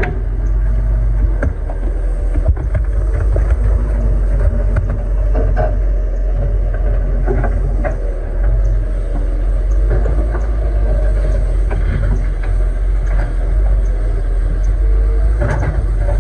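Excavator's diesel engine running steadily, with scattered short knocks.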